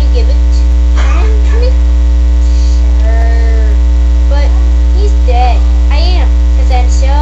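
Loud, steady electrical mains hum, the dominant sound. Faintly over it, a high-pitched voice slides up and down in short phrases.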